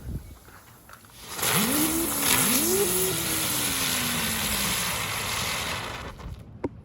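Two World Class ground bloom flower spinners burning: a loud, steady hiss of spraying sparks starts about a second and a half in. Over it come two humming tones, one shortly after the other, each sweeping up quickly as its spinner gets going and then slowly dropping as it slows. The hiss dies away near the end.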